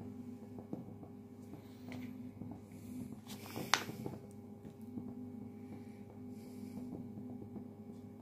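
Faint kitchen handling sounds over a steady low hum: a plastic mayonnaise squeeze pouch crinkling as it is picked up and squeezed, with small taps and one sharp click a little under four seconds in.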